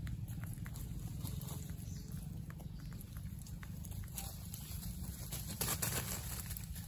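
Dry leaf litter rustling and small clicks as a baby rhesus macaque picks food from a hand and eats, with a louder rustle about six seconds in as it moves, over a steady low rumble.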